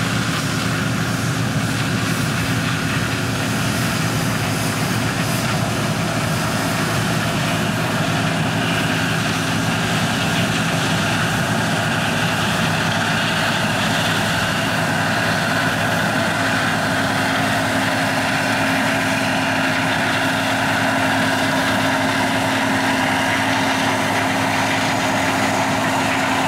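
John Deere 9650 STS combine harvesting corn, with a tractor and grain cart running alongside: a steady drone of diesel engines and threshing machinery. A low hum in it grows stronger about two-thirds of the way through.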